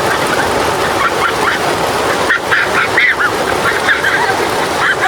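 Heavy rain falling steadily, with a quick run of short high calls about halfway through and another near the end.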